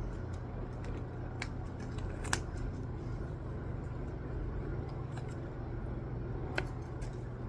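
A few small, sharp clicks and snips, about three, as the tag is worked off a velvet scrunchie, over a steady low hum.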